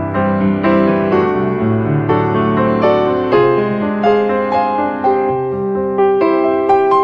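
Background music on a piano: notes and chords played at an unhurried, even pace.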